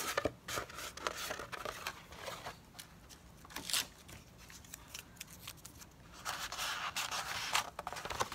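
Cereal-box cardboard being flexed and handled while masking tape is pressed on, giving scattered clicks and crackles early on and a longer stretch of rustling near the end.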